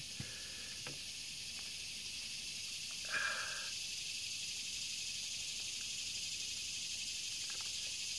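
Steady high-pitched insect chorus, with a few faint clicks and one short pitched call about three seconds in.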